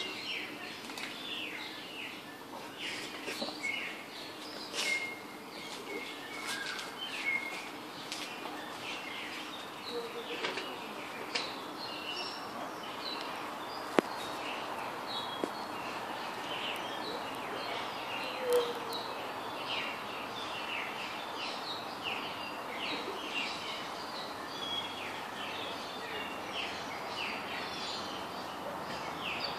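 Many small birds chirping, short high calls overlapping throughout, over a steady background hum of ambient noise. A single sharp click sounds about halfway through.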